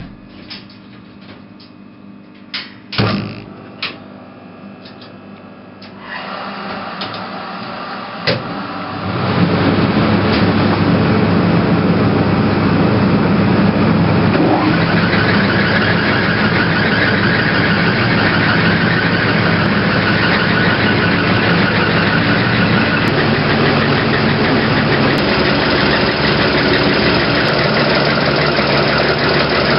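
Motor-driven plant machinery being switched on: a few clicks and knocks, then about nine seconds in it starts and runs with a loud, steady rushing hum. A higher tone joins about five seconds later.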